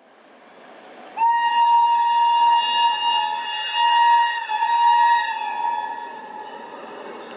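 WAP7 electric locomotive's steam-whistle-style horn sounding one long note of about four seconds. It starts abruptly about a second in and fades away near the end, over the rising noise of the approaching train.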